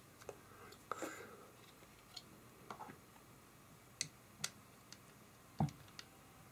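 Scattered small clicks and light knocks of a 3.5-inch hard drive and the steel plates of its drive-bay mounting bracket being handled while screws are fitted by hand. The loudest is a duller knock about five and a half seconds in.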